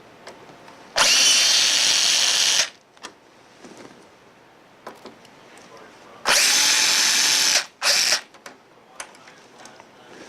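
Power drill/driver backing out the control panel's screws: two steady runs of about a second and a half each, about five seconds apart, then a brief burst near the end, with light clicks between them.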